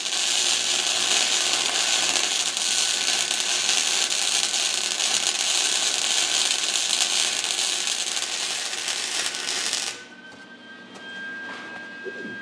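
Electric arc welding, steel on steel: a steady crackling hiss about ten seconds long that stops suddenly, with a steel handle piece being welded to half of a steel ball bearing. After it stops, a faint steady high whine remains.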